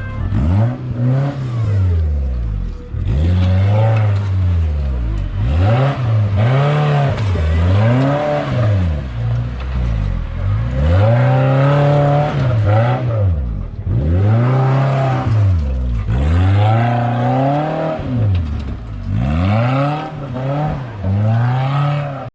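Modified off-road 4x4's engine revving hard again and again, its pitch climbing and falling back with each blip of the throttle every second or two.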